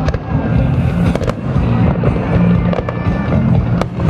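A fireworks display: several sharp cracks of bursting shells over a continuous deep rumble, with music playing underneath.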